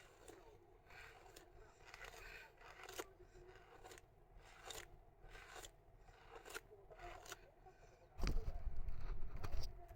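Irregular short scratchy rubbing strokes, a few a second, like something brushed or handled close to the microphone. About eight seconds in, a louder low rumble lasts about a second and a half.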